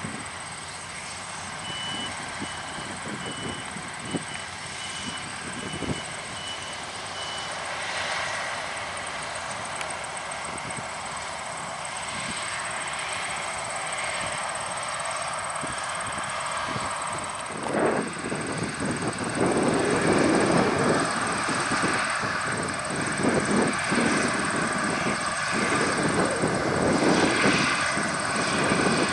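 Claas Lexion 780 combines running while harvesting corn: a steady, even machinery noise that grows clearly louder a little past the middle. A short run of high beeps sounds over it near the start.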